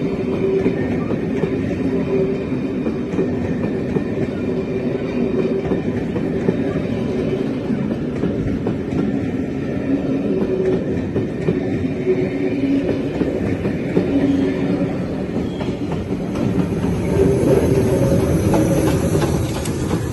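A train running past on the line: a continuous rumble of wheels on rail with a steady hum, a little louder near the end.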